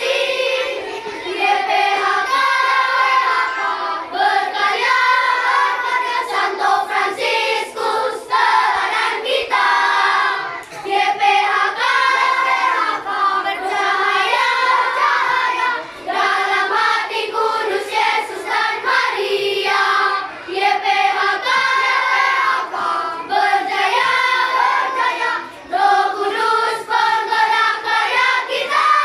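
Children's choir singing a march song, in phrases broken by short pauses for breath every few seconds.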